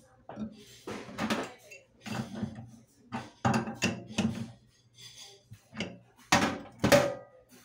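Metal clinks and clanks from an adjustable wrench working the mounting nut of a deck-mounted faucet on a stainless steel sink. It is a run of separate sharp knocks, with the two loudest near the end.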